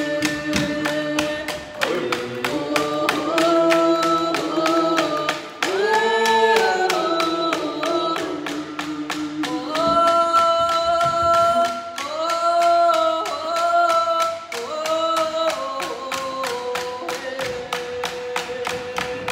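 A group of voices singing together in unison to a steady, even beat of hand-held frame drums: a canoe family song with drums. The singers hold long notes that step up and down between phrases.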